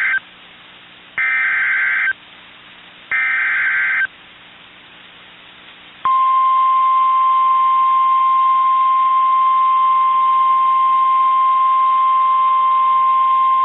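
NOAA Weather Radio emergency alert signal: three short, raspy digital data bursts of the Specific Area Message Encoding header, about a second each, then after a pause the steady single-pitch warning alarm tone begins about six seconds in and holds, announcing a warning.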